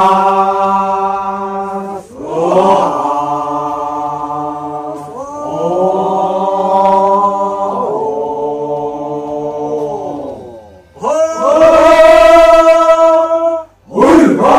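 A group of voices chanting together in long held notes, several pitches sounding at once. The phrases last two to three seconds, each sliding up into its note, with short breaks between them, and a sharp vocal burst comes right at the end.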